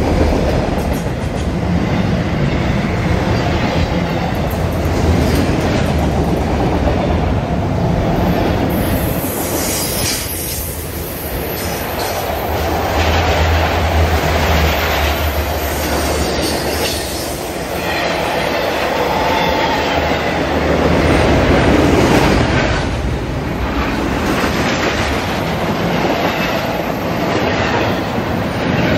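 Freight train rolling past at close range, its autorack and intermodal cars passing in a loud, continuous rumble of steel wheels on rail.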